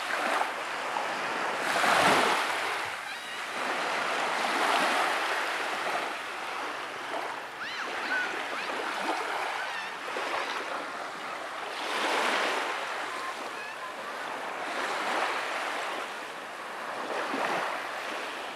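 Small waves washing in on a beach, the surf swelling and ebbing every few seconds.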